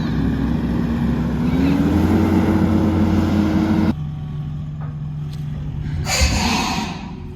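Skid steer engine running under load, its pitch rising about a second and a half in. The sound drops abruptly about four seconds in to a lower steady running, with a brief hiss of about a second near the end.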